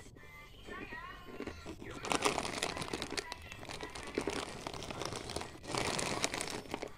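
Crisp bolu emprit, a cassava-flour cake, crunching and crackling close up. It starts about two seconds in and runs until just before the end, with a short break a little past five and a half seconds.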